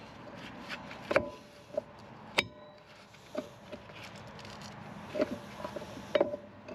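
Brake parts being handled and fitted by hand: a scatter of sharp metal clicks and clinks, some ringing briefly, the sharpest about two and a half seconds in.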